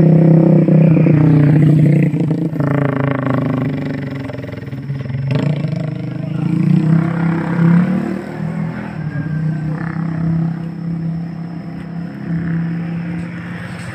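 A motor vehicle engine running, loudest in the first two seconds, then fading, and swelling again about seven seconds in.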